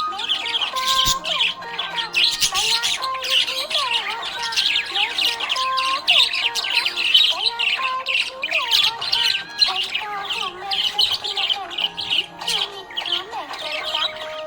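Small pet parrots chattering and squawking without a break, a dense mass of high chirps and squeaks, over a soft background melody.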